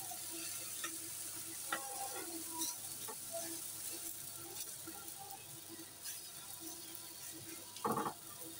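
Wet leftover dough sizzling with a steady hiss on a hot iron griddle (tawa) as it is poured from a bowl and patted out by hand, with a few soft clicks. A short, louder knock comes near the end.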